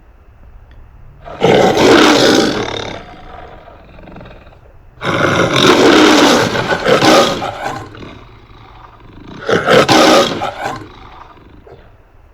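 A lion roaring three times, each roar loud and about one and a half to two and a half seconds long, with quieter pauses between. It is played as a brand's sound logo, in the manner of a film studio's roaring-lion intro.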